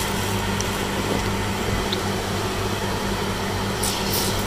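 A steady electric motor hum with background hiss. Near the end comes a brief rustle of plastic sheet being handled.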